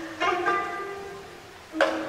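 Instrumental background music: a few held notes, with new notes coming in sharply just after the start and again near the end, fading in between.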